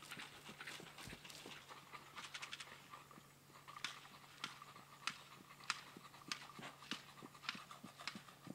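Hoofbeats of a young horse running loose on grass: quiet, sharp strikes, clustered at first, then coming about every half second or so.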